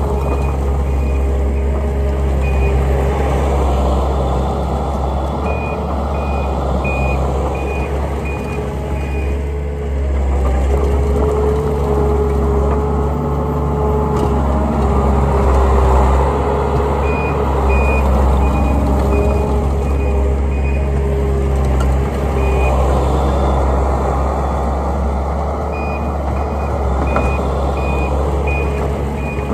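Takeuchi TL140 compact track loader's diesel engine running hard with a whine that rises and falls as it works the bucket, and its back-up alarm beeping in several spells of steady beeps as it reverses.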